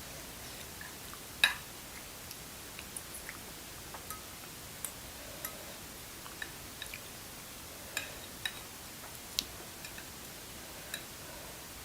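Close-miked chewing of soft rice noodles in spicy broth: scattered short wet mouth clicks and smacks over a steady hiss, the sharpest about a second and a half in.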